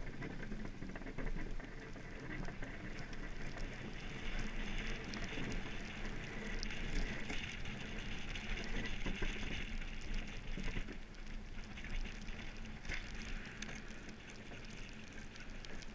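Monotype XV ice yacht sailing over snow-covered lake ice: a steady hiss of its runners sliding through the snow, full of fine crackles.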